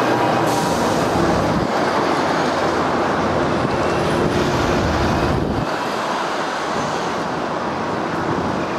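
Loud, steady rumble and hiss of passing vehicles. The low rumble drops away about six seconds in, leaving a lighter wash of noise.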